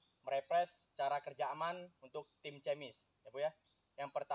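Steady high-pitched drone of insects, with a man speaking in short phrases over it.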